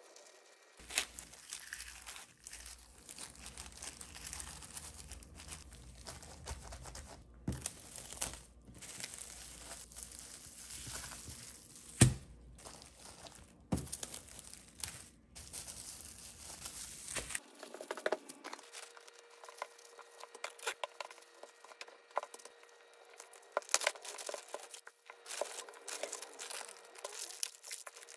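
Packaging crinkling and being torn, with scattered clicks and knocks and one sharp knock about twelve seconds in. A low hum under the first part stops about seventeen seconds in.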